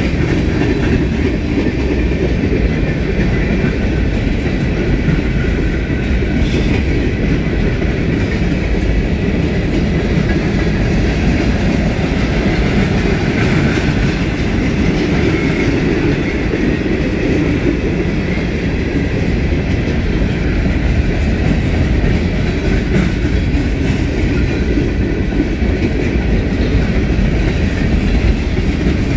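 Freight cars rolling past at close range: steel wheels rumbling and clacking over the rail joints, with the cars rattling. Loud and steady throughout, with no locomotive engine heard.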